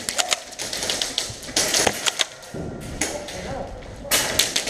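Airsoft gunfire: three bursts of rapid sharp snaps and clicks, about two seconds apart.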